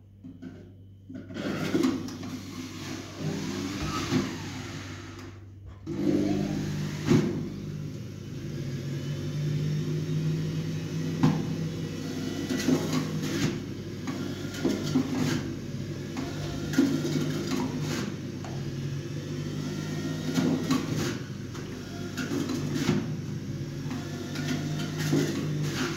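A motor running steadily, with irregular knocks and clatter over it; it cuts out briefly about five and a half seconds in and then carries on.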